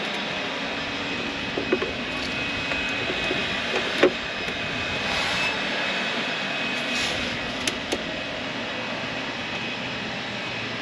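A few short metal clicks and taps as a diesel heater's small exhaust muffler is handled and fitted onto its pipe, the loudest about four seconds in, over a steady rushing noise in the background.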